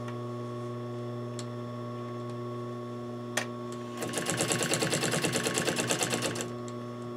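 Industrial sewing machine stitching in a quick, even run of strokes for about two and a half seconds, starting a little past halfway. Before it there is a steady hum and a single click.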